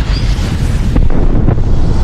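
Loud booming gunshot-and-explosion sound effect with a heavy, continuous low rumble, getting louder with a sharper crack about a second in.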